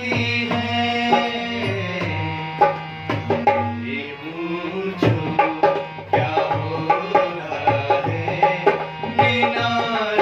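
Dholak hand drum struck in a steady rhythm under held harmonium notes, accompanying a man singing a Hindi film song.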